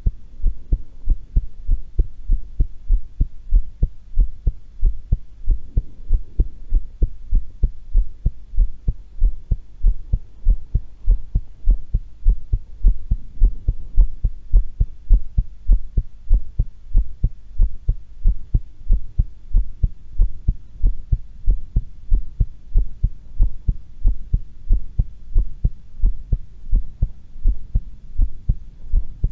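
A woman's heartbeat at rest, a steady run of evenly spaced low beats.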